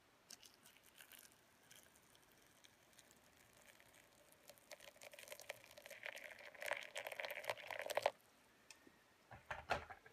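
Near-boiling water poured in a slow, steady stream from a kettle into a gaiwan onto a loose tea ball. The splashing builds for a few seconds and stops suddenly, followed by a couple of light knocks.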